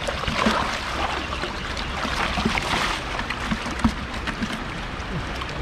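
Shallow creek water sloshing and trickling as people wade and scoop for fish, with small gurgles and a sharp tick nearly four seconds in.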